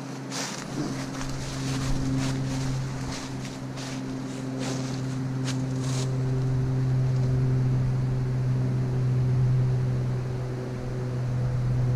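A steady engine drone slowly getting louder. In the first half, dry leaves crunch and rustle underfoot.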